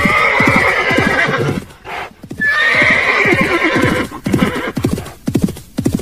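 Horse neighing twice, each a long call of about a second and a half with a rising start, over a steady run of hoofbeats.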